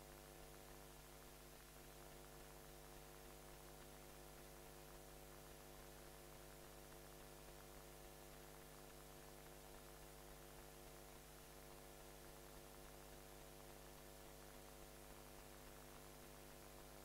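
Near silence: a faint, steady electrical hum with many even overtones, over light hiss.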